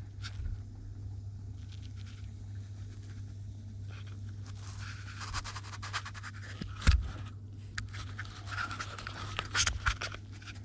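Handling noises: scattered scrapes and rustles with a sharp knock about seven seconds in, over a steady low hum.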